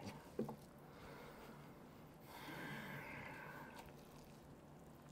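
Quiet eating sounds from a man with a mouthful of noodles: a short mouth click about half a second in, then a long, hissy breath through the nose lasting about a second and a half, starting a little over two seconds in.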